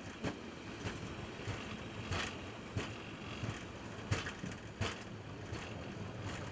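Boeing 717 landing rollout heard from the cockpit: a steady rush of engine and rolling noise as the jet decelerates on the runway with reverse thrust selected, broken by light thumps about every two-thirds of a second.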